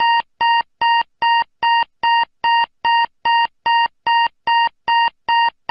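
Electronic emergency attack-warning alert tone: a rapid, evenly spaced series of short identical beeps at one pitch, about two and a half per second.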